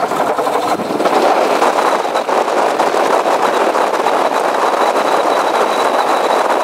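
Rotax 912 four-cylinder boxer aircraft engine just after starting, running steadily with its throttle cracked slightly open, propeller spinning.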